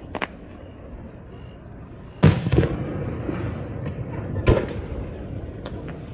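Aerial firework shells bursting: a loud, sharp boom a little over two seconds in with a rumbling echo after it, a second boom about two seconds later, and faint scattered pops between.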